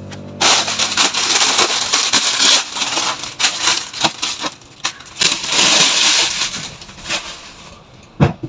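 Tap water running and splashing into a stainless steel sink as a bunch of leafy greens is rinsed under it, with crackly splashes and rustling of the wet leaves. The water starts about half a second in and dies away near the end.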